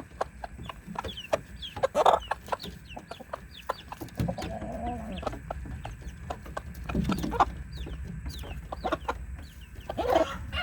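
Chickens clucking in low bursts every couple of seconds, over a stream of quick sharp clicks of beaks pecking, with short high chirps scattered through.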